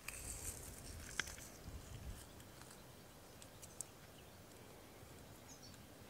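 Quiet outdoor ambience: scattered faint ticks and clicks, a soft low rumble in the first two seconds, and a brief faint bird chirp near the end.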